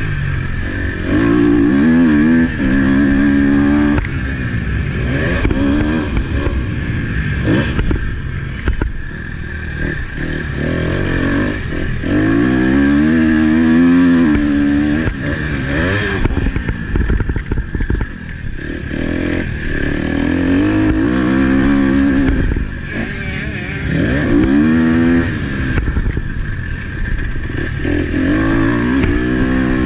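KTM motocross bike's engine revving up and down over and over as it is ridden hard round a dirt track, the pitch climbing on each acceleration and dropping off for the corners, with wind rush and knocks from the bumps on the helmet-mounted microphone.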